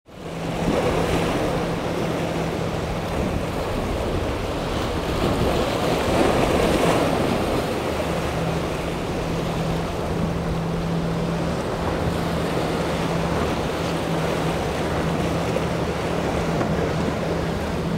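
Four Mercury 400 outboard engines on an Invincible center-console boat run with a steady low drone as the hull drives through choppy inlet waves. Spray and water rush sound along with it, swelling briefly about six seconds in, with wind buffeting the microphone.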